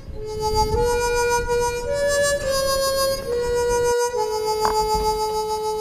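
Background music: a slow melody of long held notes, with a brief break about four seconds in.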